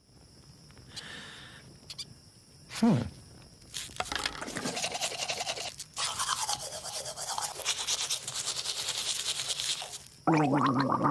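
Toothbrush scrubbing teeth, a fast steady run of scratchy brushing strokes that starts about four seconds in and lasts some six seconds. A short falling glide comes a little earlier. Near the end a pitched, voice-like gurgle starts, as in gargling.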